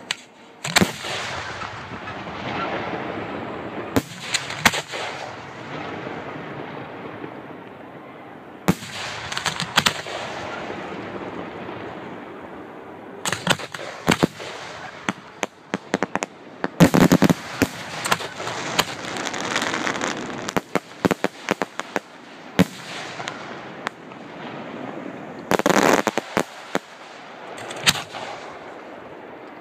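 Aerial fireworks shells bursting: sharp bangs, each trailing off in a rolling echo, with quick runs of many bangs in the middle and again near the end.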